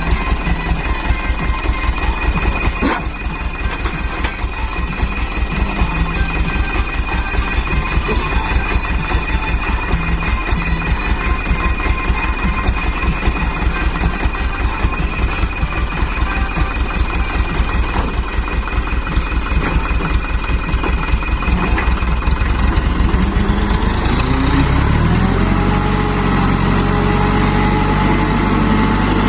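Loaded dump truck's diesel engine idling with a fast, even knock, then revving up about three-quarters of the way through and holding at a higher, steady speed.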